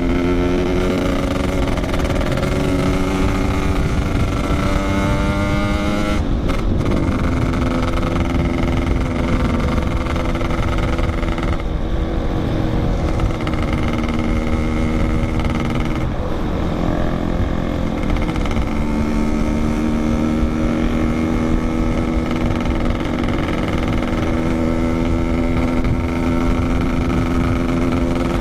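Yamaha RX-King two-stroke single-cylinder motorcycle engine running under way, its pitch creeping up within each gear and shifting at short breaks about 6, 12, 16 and 19 seconds in, then holding steady, over a steady rush of wind.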